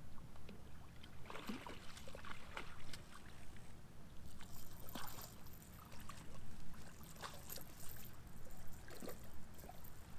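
Irregular splashing in the water as a hooked channel catfish is brought in to the creek bank.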